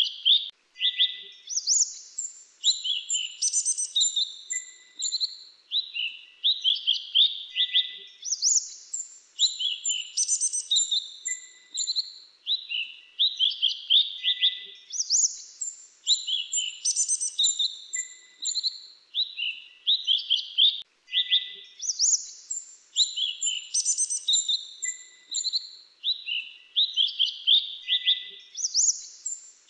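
Grey-chinned minivet song: rapid bursts of high, thin chirping notes in quick clusters, with the same sequence of phrases coming round again about every seven seconds.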